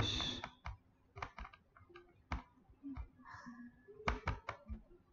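Irregular, sharp, light clicks and taps of a stylus on a tablet as digits are handwritten in digital ink, about a dozen strikes spread unevenly.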